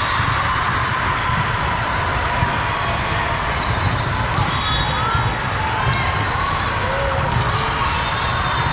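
Steady din of a big volleyball tournament hall: crowd chatter and ball play, with scattered short shoe squeaks and a few brief high whistle tones.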